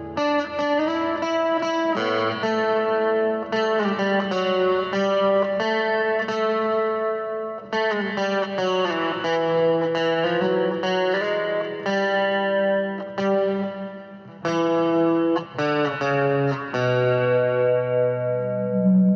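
Electric guitar playing through effects, a run of plucked notes and chords with a held chord ringing out near the end.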